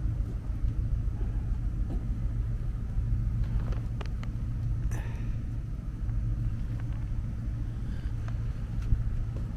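A steady low rumble, with a few faint clicks and knocks near the middle.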